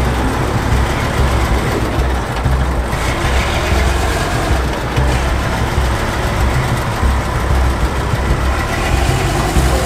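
MAN KAT 8x8 military truck's diesel engine running steadily under load at low speed as the truck crawls through a deep dirt ravine.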